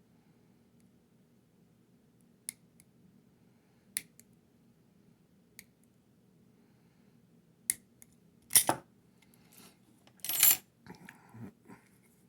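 Sharp metallic clicks and clacks of a laminated steel padlock and small metal tools being handled and set down. There are a few light ticks in the first half, then louder knocks about eight and ten seconds in, followed by some smaller rattles.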